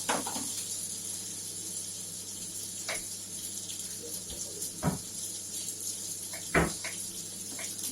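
A few short, sharp clinks and knocks of kitchen utensils or dishes over a steady hiss, the loudest knock about two-thirds of the way through.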